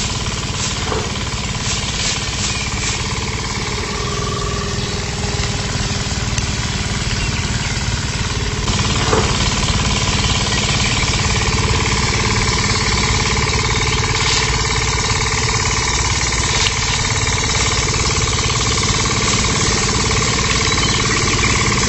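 Small electric motor of a miniature homemade threshing machine running steadily, with a rapid rattle and a steady whine.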